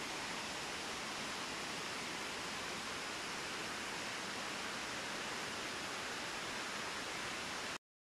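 Steady rush of a mountain stream cascading over rocks in a gorge, an even hiss that does not change. It cuts out completely for a moment near the end.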